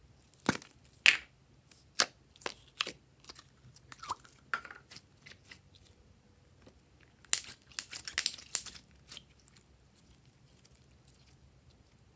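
Orange store-bought slime being handled and stretched, giving sharp sticky pops and crackles. They come scattered at first, with a dense run of them about seven to eight and a half seconds in.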